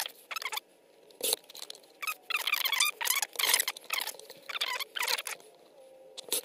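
Sheet of printed adhesive vinyl rustling and scraping as it is lifted, slid and pressed flat on a plastic paper-trimmer base, in several short scratchy bursts.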